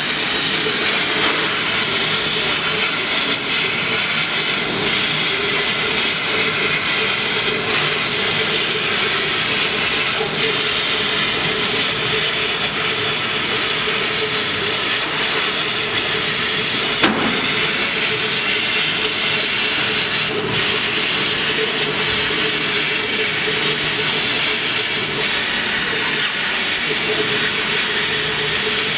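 Laser cutting machine running as it cuts sponge sheet: a loud, steady hiss of air-assist air blowing through the cutting head, with a steady hum underneath. One sharp click about seventeen seconds in.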